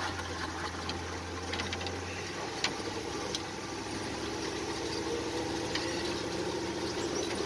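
1941 Dodge WC truck's flathead straight-six engine running, heard from inside the cab. It grows louder and higher in pitch through the second half as the truck picks up speed. There is a single sharp click a little under three seconds in.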